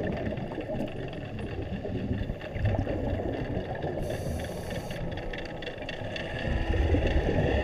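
Underwater ambience heard through a camera housing: a steady low rumble and drone, with a hiss lasting about a second about four seconds in.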